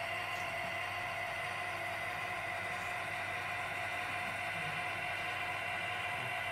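Gauge 1 model railway turntable's drive mechanism running steadily as the bridge slowly rotates: a continuous whir with several held whining tones.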